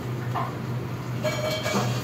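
Steady low hum of a commercial kitchen's extraction hood, with a soft knock and then a brief high metallic squeal of steel cookware being handled, about a second and a half in.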